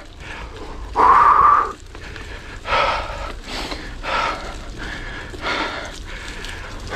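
A mountain biker breathing hard through his mouth while labouring up a steep climb: a loud gasp about a second in, then a run of heavy breaths about one a second.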